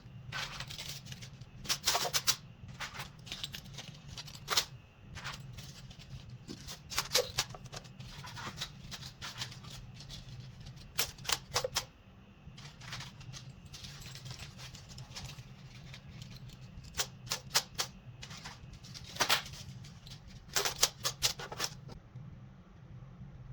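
Enamel bookmarks and their packaging being handled and sorted: irregular clusters of sharp clicks and clinks, over a steady low hum.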